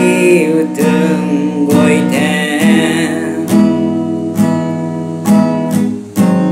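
Acoustic guitar strummed in a slow, even rhythm, about one strum a second, each chord left ringing as a closing instrumental passage of the song.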